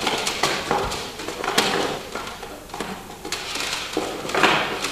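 Clattering, clicks and knocks of album cases being rummaged through and picked up by hand.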